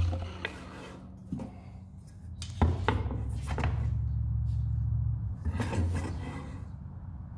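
Steel square clinking and scraping on a freshly sanded walnut end-grain cutting board as it is laid across the surface to check for flatness. There are a few sharp knocks and a longer low rubbing sound in the middle seconds.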